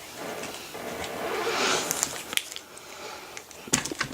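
Trading cards and their foil packaging being handled: a rustling and shuffling, then a few sharp clicks and taps in the second half.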